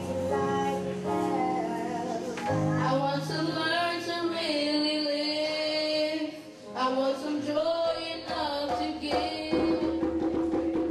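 A boy singing a slow solo into a microphone, with a woman's voice and sustained low accompanying notes beneath. The sung notes are long and slide between pitches.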